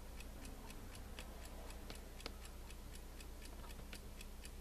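Faint, steady, rapid ticking of a clock, about five ticks a second, over a low electrical hum.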